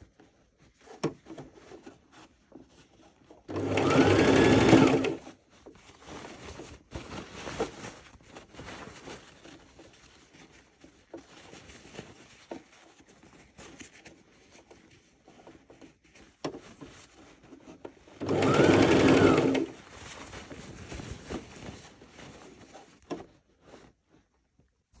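Domestic electric sewing machine stitching a velvet strip onto cotton fabric in two short runs of about a second and a half each, one about four seconds in and one near nineteen seconds, with fainter scattered clicks between.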